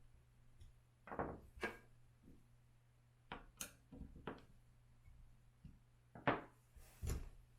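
Scattered knocks and clicks of hard parts and hand tools being handled during electric skateboard assembly, about eight short separate impacts over a low steady hum.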